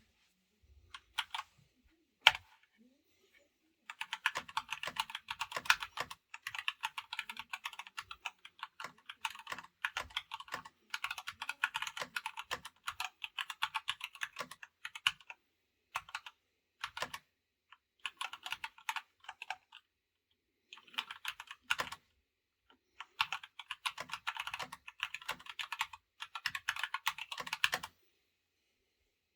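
Typing on an Epomaker GK96s mechanical keyboard with Gateron Red switches, set on a mouse mat: a few single key presses, then runs of rapid key clicks broken by short pauses.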